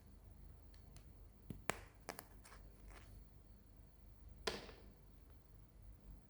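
Small hard toys or packaging being handled close up: a few sharp clicks and taps in the first half, then one louder click with a brief brushing scrape near the end.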